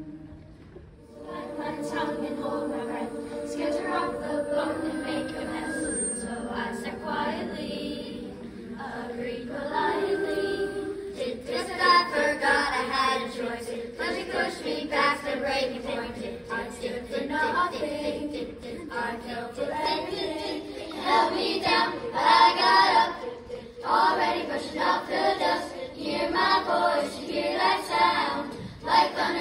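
Sixth-grade children's choir singing together; a new phrase starts about a second in, and the singing grows fuller and louder about twelve seconds in.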